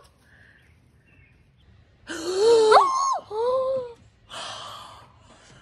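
Shocked wordless cries: a loud gasping cry about two seconds in that jumps up in pitch, a second cry falling away, then a long breathy gasp.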